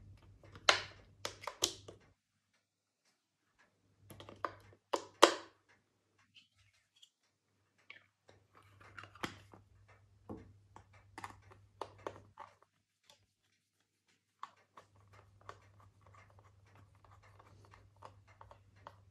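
AA batteries being pressed into the spring contacts of a handheld meter's plastic battery compartment: sharp clicks about a second in and again about five seconds in. Then scattered clicks of the plastic battery cover being fitted, and near the end a screwdriver turning the cover screw with a run of small rapid ticks.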